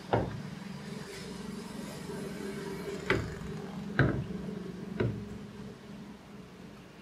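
Hard plastic knocks as a top-loading washing machine's pulsator is handled against the tub: one knock at the start, then three about a second apart, over a steady low hum.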